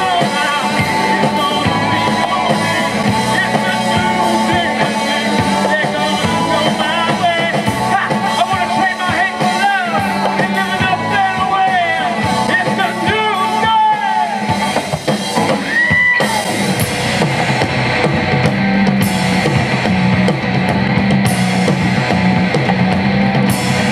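Live rock band playing: drum kit, electric guitars and bass. A lead line bends up and down in pitch through the middle, and after a brief dip the band settles into steadier held notes.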